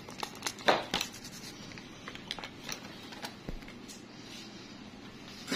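Scattered short scratches and clicks of small nail tools, a metal nail pick working at a toenail's edge. The strongest clicks come just under a second in and again near the end.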